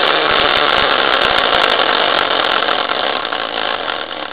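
Homemade prize wheel, a caster wheel covered in team-logo stickers, spinning fast past a pointer: a loud, dense rattling clatter that fades and thins into separate clicks near the end as the wheel slows to a stop.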